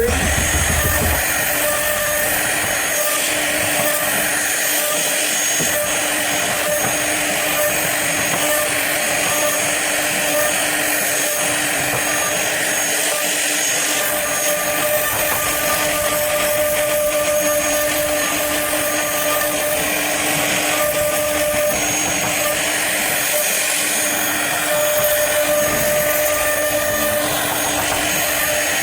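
CNC router spindle running with its bit cutting wood: a steady high whine over a dense cutting hiss, with a mid-pitched tone that drops in and out several times.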